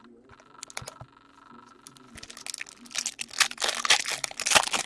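Foil wrapper of a trading card pack crinkling and tearing as the pack is opened, a run of crackles that grows denser and louder from about two seconds in.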